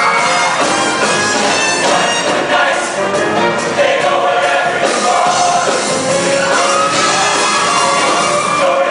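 Show choir singing in parts over instrumental accompaniment, with many voices holding and moving between sustained notes.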